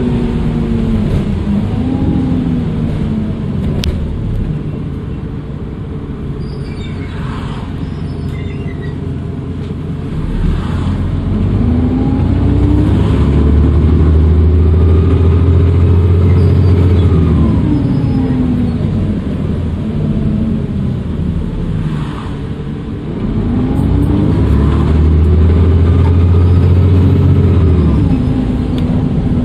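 Dennis Trident II double-decker bus's diesel engine heard on board, pulling away twice, each time rising in pitch and then easing off, with a faint high turbo whistle riding over each pull.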